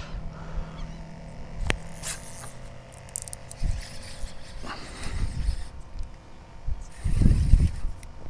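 Wind gusting across the microphone in irregular low rumbles, strongest about seven seconds in, over a faint steady machine hum from nearby construction. There are a few sharp clicks, one about two seconds in.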